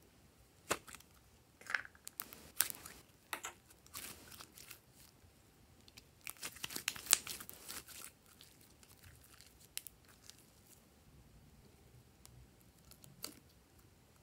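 Red glitter slime squeezed and pulled out of a plastic ball-shaped container by hand. Sharp clicks of the plastic and sticky slime come in the first few seconds, then a stretch of sticky crackling and tearing about six to eight seconds in, the loudest part, then a few faint pops.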